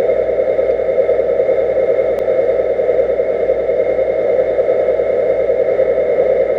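Steady mechanical hum, heard underwater, with a faint high whine over it and one light tick about two seconds in.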